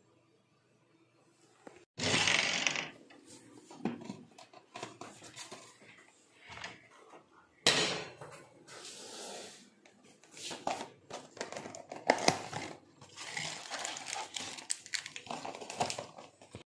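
Clattering and rustling of kitchen containers and a cardboard tea box being handled: a sudden loud clatter about two seconds in, then irregular knocks, clicks and rustling.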